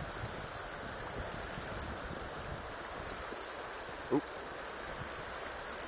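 Shallow river flowing over a stony bed: a steady rushing hiss of water, with one short voice-like sound about four seconds in.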